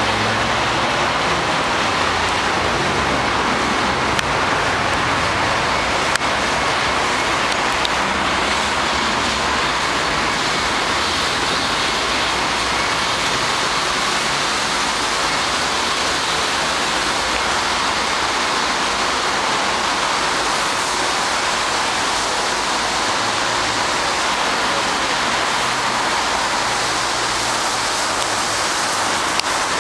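Steady, loud rushing noise with no distinct events, the constant roar of an outdoor street scene.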